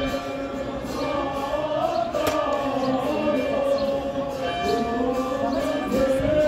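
A group of voices singing together in long held notes that rise and fall slowly, like a choir.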